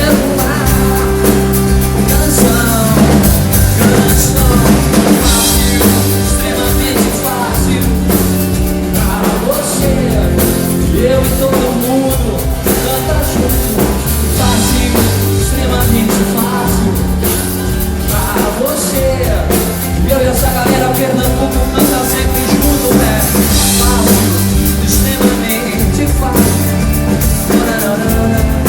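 Pop-rock band playing live at full volume: drum kit, bass and electric guitar, with singing.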